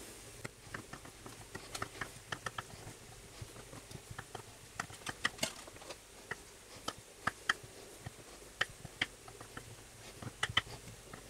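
Small kitchen knife cutting boiled potatoes on a wooden chopping board, with the cut pieces dropped into a frying pan: a string of light, irregular taps and clicks.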